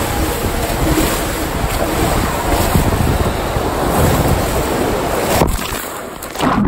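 Water rushing and splashing, with loud wind buffeting on the phone microphone, as an inner tube rides down an enclosed water slide and splashes out into the pool. The noise dips briefly near the end.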